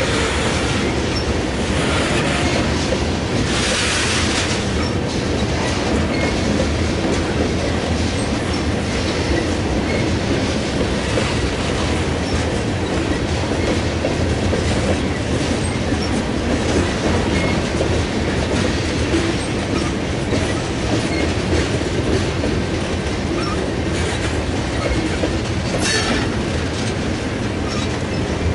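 Freight cars of a mixed train, covered hoppers and tank cars, rolling slowly past: a steady rumble of steel wheels on rail with clickety-clack over the rail joints. A brief higher-pitched scrape comes about four seconds in and again near the end.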